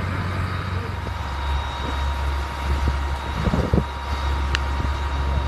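A fire truck's engine runs steadily, a low rumble with a faint steady whine over it, while its pump feeds the hose lines. A few brief knocks come around the middle.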